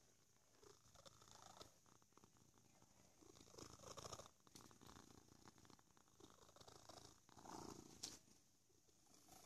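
A domestic cat purring right at the microphone, swelling and fading in waves, with a sharp tap about eight seconds in.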